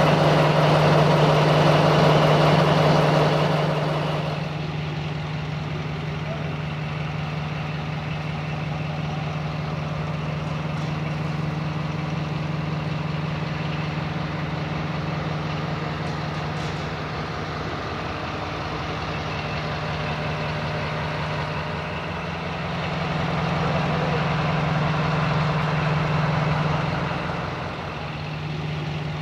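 Diesel locomotive engine running steadily, a low, even drone that is loudest for the first four seconds and swells again for a few seconds near the end.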